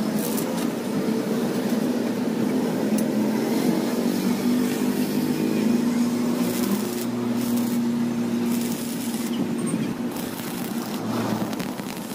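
A steady, engine-like mechanical hum that wavers slightly in pitch, with a few faint clicks.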